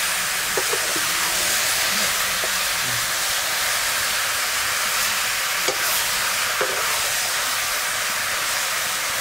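Pork pieces frying in a hot iron wok over a wood fire: a steady sizzle, with a few light knocks as the ladle stirs.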